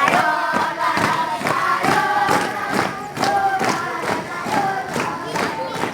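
A children's choir singing in unison, with a steady beat of sharp strikes under the voices.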